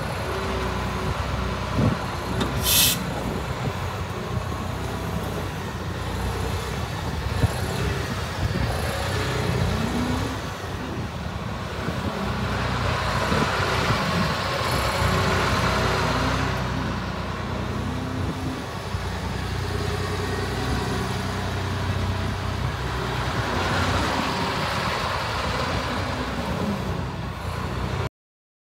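Caterpillar 336E L H hydraulic excavator's diesel engine running steadily while the machine works its hydraulics and swings, swelling louder under load twice, with a short hiss about three seconds in. The sound cuts off suddenly near the end.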